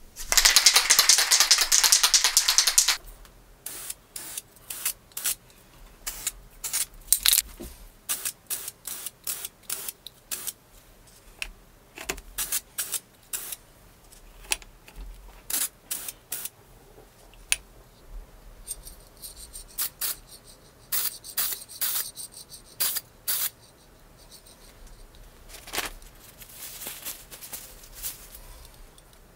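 Aerosol spray-paint can hissing in one strong burst for about three seconds. A long run of sharp, irregular clicks and rattles follows, then fainter spraying later on.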